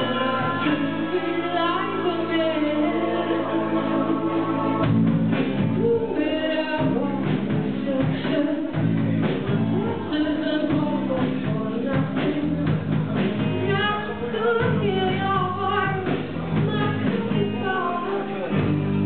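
Live rock band playing a song: women's voices singing over keyboard, drums and bass guitar. The drums and the low end come in about five seconds in.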